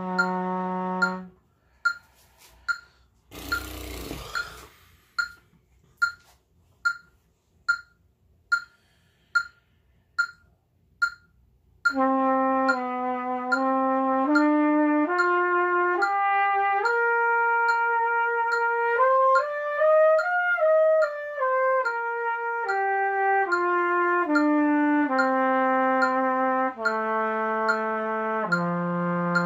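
Trumpet holds a low note that stops about a second in. A metronome then ticks alone, a little over once a second, with a long breath in near the start of the gap. From about twelve seconds in, the trumpet plays a smooth slurred flow-study line that climbs step by step and comes back down, settling on a long low note near the end.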